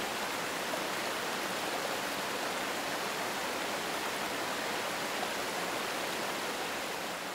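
Rushing whitewater: a steady, even roar of moving water that fades out near the end.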